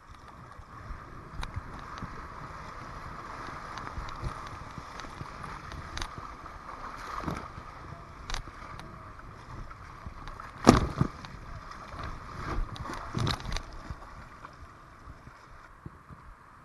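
River water rushing over a shallow riffle around a kayak, with paddle strokes in the water and a few sharp knocks and splashes, the loudest about eleven seconds in.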